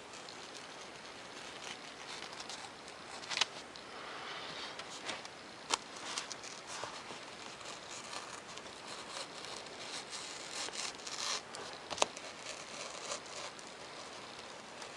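Razor knife drawing through a sheet of 3mm Depron foam, a scratchy, rasping cut, with three sharp clicks scattered through.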